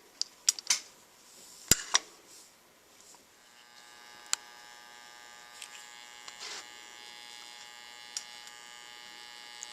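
A few sharp clicks of handling, then about three seconds in a soldering gun is switched on and hums steadily, its transformer buzzing at mains pitch.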